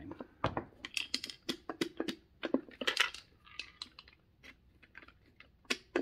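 Wooden bars of a hand-held puzzle box clicking and knocking as they are pushed and pulled, a quick run of sharp wood-on-wood clicks in the first few seconds, a brief scrape of wood sliding in the middle, then a few more clicks near the end.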